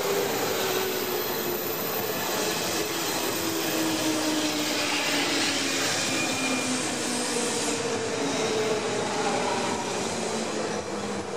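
Orange JR West 201 series electric multiple unit pulling away: steady wheel-on-rail rumble under a motor whine whose pitch glides down and then rises again, getting a little quieter near the end.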